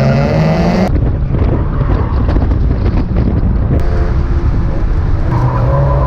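Mazda MX-5 race car's four-cylinder engine heard onboard, first pulling at high revs with a clear rising note. About a second in the note drops into a rough, low rumble with wind noise for several seconds. Near the end the engine note comes back and rises again.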